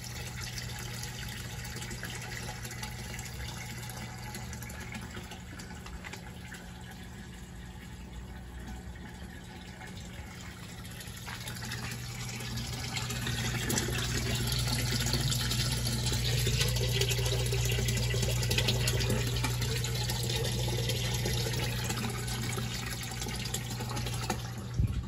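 Water circulating and splashing in a homemade bait tank, over the steady low hum of a small submersible water pump. The splashing grows louder about halfway through and eases off near the end.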